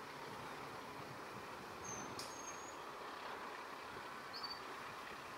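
Faint steady rural background noise with two brief high bird chirps, about two seconds in and again near four and a half seconds, and a light click just after the first chirp.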